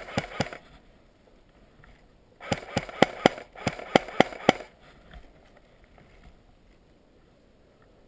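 Airsoft guns firing rapid single shots, about five sharp cracks a second. A short string comes at the start, then a longer string of about ten shots from about two and a half seconds in.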